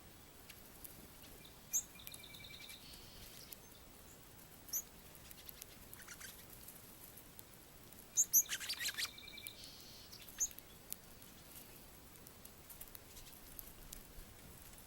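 Small birds giving short, high chirps now and then, with a cluster of quick chirps and light clicking about eight seconds in.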